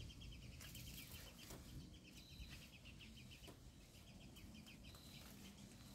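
Quiet garden ambience: faint, rapid rhythmic chirping of insects, with a few soft rustles of pepper leaves as hands work through the plant.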